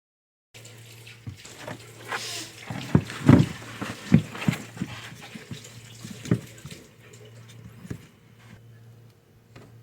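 Handling noise from a new washing machine gearbox being fitted: a rough scraping rustle, then several knocks and clunks of the parts between about three and six seconds in, tailing off into quieter clicks.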